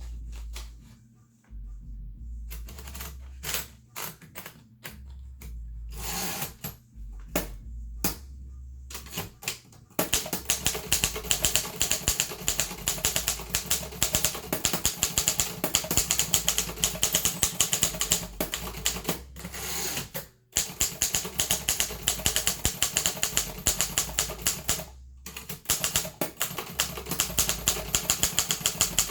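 Harris Visible No. 4 typewriter: scattered single clicks for about the first ten seconds, then steady fast typing, a quick run of key strikes that stops briefly twice in the second half.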